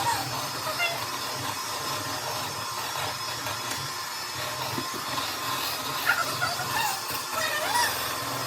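Electric hand mixer running steadily, its beaters whirring through chocolate cake batter. Near the end come a few short high-pitched sounds over the motor.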